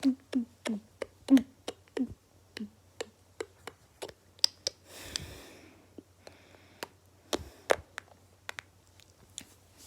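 Fingers tapping and handling a phone: an irregular run of sharp clicks and dull taps, quick at first and then more spread out, with a brief rustle about five seconds in.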